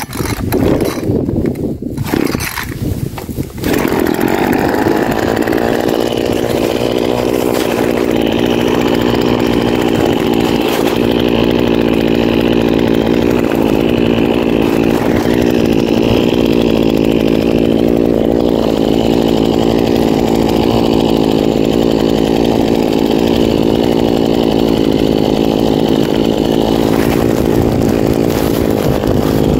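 Small petrol engine of a handheld brush cutter used for grass cutting. It sounds uneven and stop-start for the first few seconds, then runs steadily at high speed from about four seconds in.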